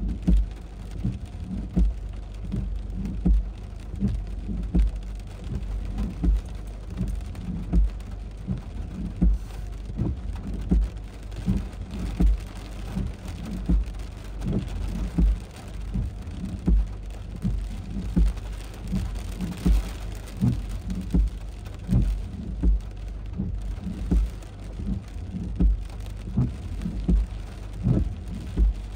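Heavy thunderstorm rain falling steadily. Large drops thud irregularly on a nearby surface, about two a second.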